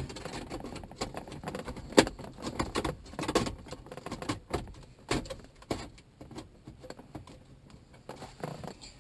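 Irregular clicks, knocks and light metallic rattles of a car stereo being worked into its dash mounting sleeve, with the sleeve's metal locking tabs being bent in by hand. The sharpest knock comes about two seconds in.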